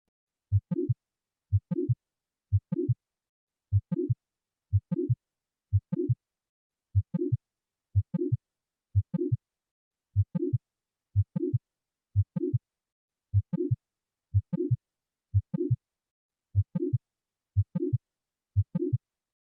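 Recorded heart sounds from an auscultation training track, beating steadily a little under once a second. Each beat is a cluster of low thumps with a short, higher-pitched tone between them.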